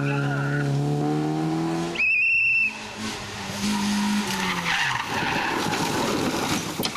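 Honda Civic hatchback rally car at full throttle, its engine note rising through the first two seconds. A short, loud, high tyre squeal follows, then the engine running on. Near the end the tyres scrabble and skid on the loose, dusty surface as the car slides.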